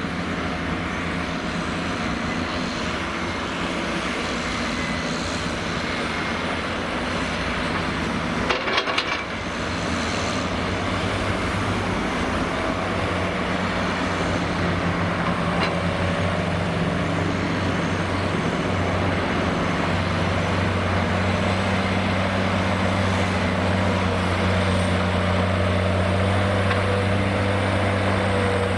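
Heavy diesel machinery working: a crawler excavator and an articulated dump truck running steadily under load during loading, with a short clatter of knocks a little over eight seconds in. The engine hum grows louder and steadier from about twenty seconds in.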